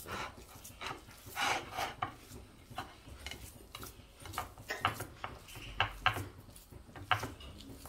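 Hands patting and pressing a crumb coating onto seafood on a ceramic plate: soft rubbing and crunching, with scattered light taps and clicks of fingers on the plate, more frequent in the second half.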